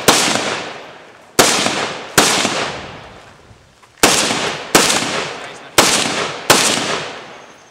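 AR-15 rifle fired seven times from prone, a single shot and then three pairs about two-thirds of a second apart. Each crack is followed by a long echo that fades over a second or more.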